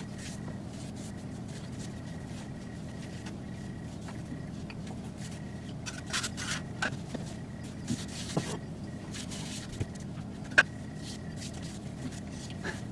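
Hands kneading bread dough on a floured countertop: soft rubbing and scraping, with scattered light taps and knocks in the second half and one sharper click near the end, over a steady low hum.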